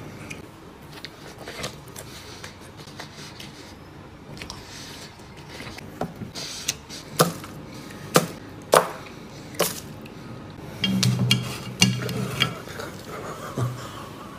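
Eating noises over a table of pork ribs: a series of sharp clicks and knocks, about six of them spaced under a second apart, with a brief low hum near the end.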